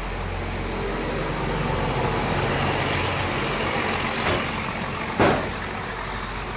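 Steady workshop noise with a low hum, and two short sharp knocks, one about four seconds in and a louder one about a second later, as hands work on the go-kart's engine parts.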